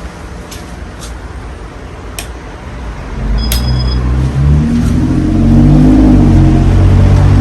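Casablanca Halogen Star ceiling fan running, with a few light clicks over a steady whoosh. About three seconds in, a low hum swells much louder and holds steady.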